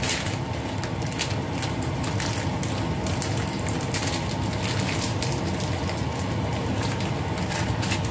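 Spiced sauce sizzling and bubbling in a stainless steel wok over a gas flame, a steady crackling hiss.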